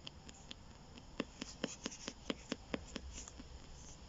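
PSB7 spirit box sweeping the AM band at its 250-millisecond rate: a regular train of sharp clicks, about four a second, over faint radio static. The clicks get louder about a second in.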